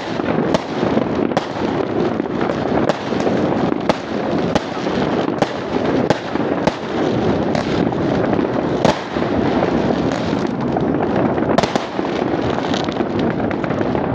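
Many fireworks and firecrackers going off at once: a steady din of explosions with frequent sharp bangs cracking through it.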